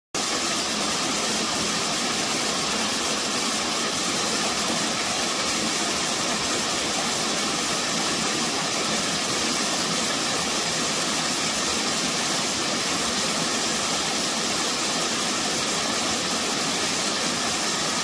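Small waterfall splashing over boulders into a pool: a steady, even rush of water.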